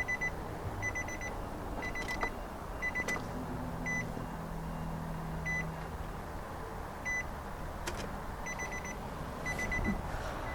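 Car's warning chime beeping about once a second with the ignition key on. Underneath, a low steady hum runs for a couple of seconds about three seconds in: the electric fuel pump priming at key-on. A few light clicks are heard along the way.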